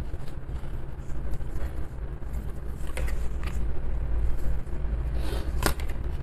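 Tarot cards being handled and laid down on a cloth-covered table: a few light taps and a brief scrape, the loudest near the end, over a steady low background rumble.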